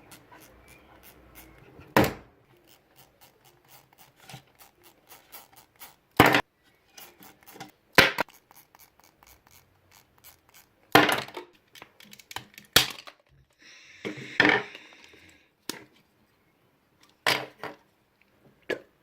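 A computer mouse being roughly taken apart: a stream of small clicks and rattles of handling, broken by about seven loud, sharp knocks, with a short scraping rasp about fourteen seconds in.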